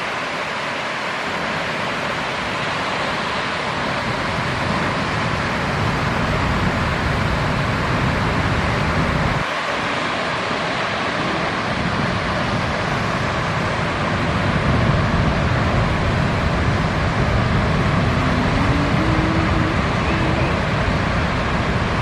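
Steady wash of ocean surf breaking, mixed with wind on the microphone; the low rumble drops out for a moment about nine and a half seconds in.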